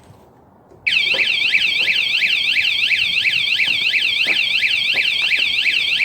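Cruxer wireless motion-sensor bike alarm going off about a second in: a loud electronic siren warbling rapidly up and down, several sweeps a second.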